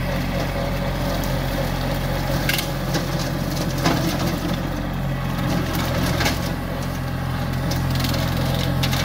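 Kubota compact tractor's diesel engine running steadily as it drives through cut brush, with several sharp cracks of sticks and branches snapping.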